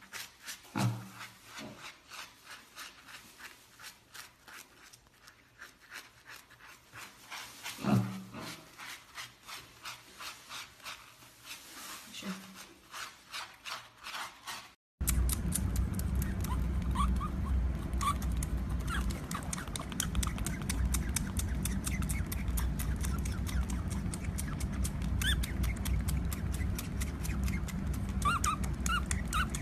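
A brush scrubbing a wet, lathered piglet in quick repeated strokes, with a few short low grunts. About halfway through it cuts to a steady low hum with faint high squeaks from a baby otter sucking at a milk bottle.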